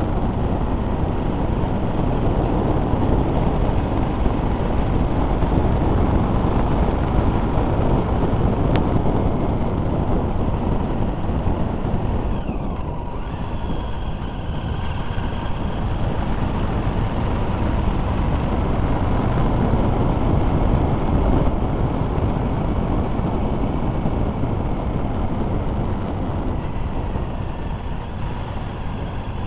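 Motorcycle on the move, heard from a camera mounted on the bike: steady wind rush over the microphone mixed with engine noise, with a brief dip about halfway through.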